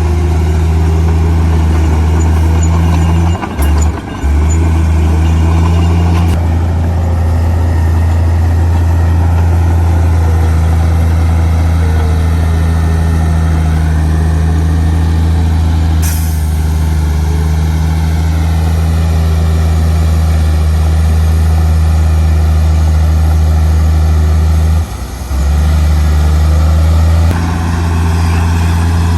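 Heavy diesel engine of earthmoving machinery running in a steady low drone, dropping out briefly twice.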